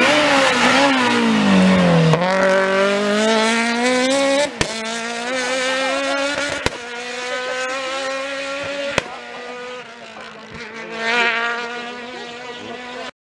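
Rally car going past at full speed, its engine note falling as it goes by. It then accelerates away, the pitch climbing and dropping sharply at three gear changes, each marked by a short crack, and fades into the distance.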